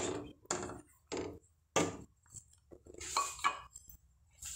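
Wooden spoon stirring melting fat and olive oil in a cooking pot, scraping and knocking against the pot in short strokes about every half second, growing fainter and more scattered after about two seconds.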